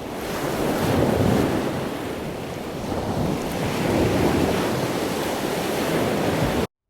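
Ocean surf washing onto a beach, swelling and easing, with wind buffeting the microphone. It cuts off abruptly near the end.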